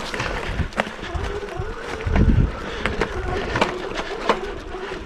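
Fat-tire electric bike riding over a bumpy dirt trail: the electric motor's whine wavers up and down in pitch with speed, over tyre rumble and scattered knocks and rattles as the bike hits bumps. A low buffet of wind on the microphone comes about two seconds in.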